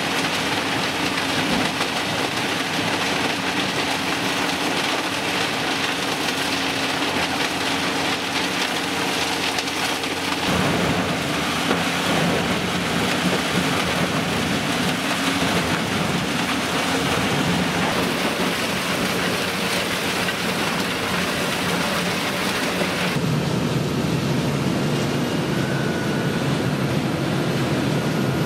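Tractor-mounted Eschlböck Biber 92 wood chipper working, a loud dense rushing and crackling of wood being chipped over a heavy engine. The sound changes abruptly twice, about ten seconds and about twenty-three seconds in.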